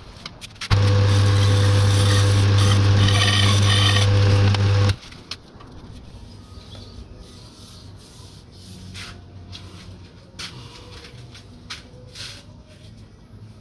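Small lathe running with a steady motor hum while a hand file rasps against a spinning acrylic disc. About five seconds in the hum and the rasping cut off suddenly. Faint clicks of hands at the lathe chuck follow.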